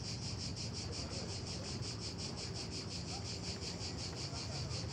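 Insects chirring in a steady, fast, high-pitched pulse, about eight pulses a second, over a faint low hum.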